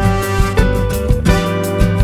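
Upbeat background music with a steady beat and plucked guitar.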